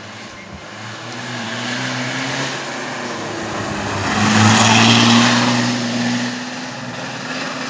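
Fiat Punto slalom race car's engine pulling hard as it comes up the road, loudest as it passes close about four to five seconds in, then fading as it drives away up the bend.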